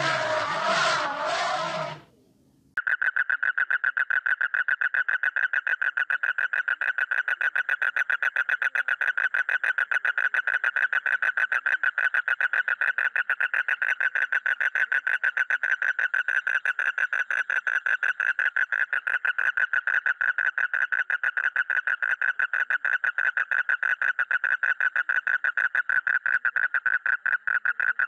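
An elephant calls for about two seconds. Then, after a short pause, a toad with its vocal sac inflated gives one long, unbroken trill of rapid pulses at a steady pitch.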